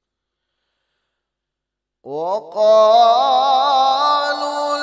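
A male Quran reciter's voice in melodic tilawat comes in about two seconds in. It glides up into one long held note with a wavering vibrato.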